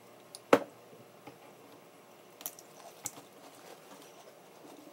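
One sharp knock about half a second in, then a few faint clicks and wet squishing as hands work through a plastic bag of seafood boil.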